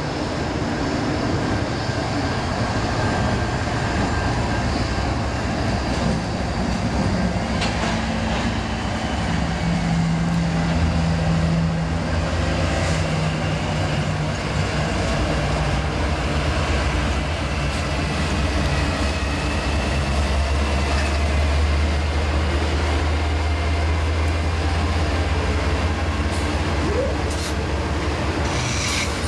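Freight train passing: a steady diesel locomotive rumble and the rolling noise of wheels on rail, the low hum growing stronger as it goes by. A faint thin high squeal drifts through the middle.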